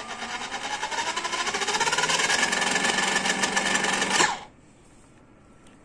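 A toy RC car's original drive motor spins the wheels freely in the air in reverse. Its whine rises steadily in pitch as it speeds up over a fast buzz, then cuts off suddenly about four seconds in when the trigger is released.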